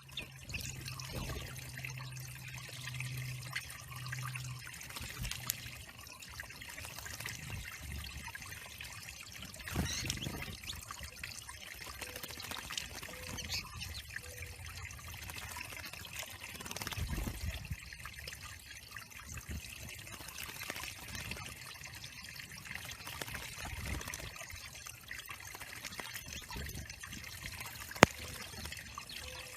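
Water trickling steadily into a backyard bird pond, with a low hum in the first few seconds and a single sharp click near the end.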